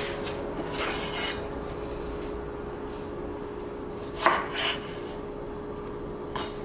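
Chef's knife slicing through tomatoes and knocking on a wooden cutting board: a few separate cuts, one about a second in, two quick ones just after the middle and one near the end, over a faint steady hum.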